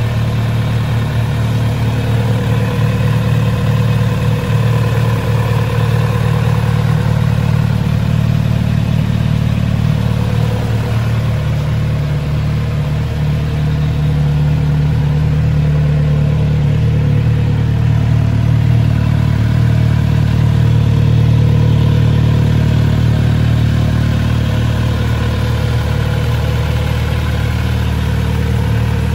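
Kawasaki Z900RS 50th Anniversary model's 948 cc inline-four idling steadily on its stock exhaust, a little louder in the middle.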